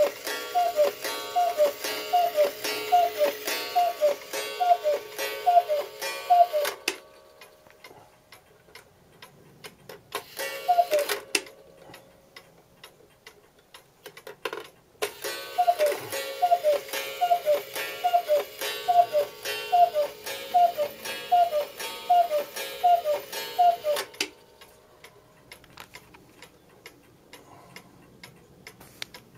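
Regula 30-hour cuckoo clock calling, its freshly re-leathered bellows sounding the falling two-note cuckoo about twice a second in a long run. A single call follows, then a second long run. The movement ticks evenly between and after the calls.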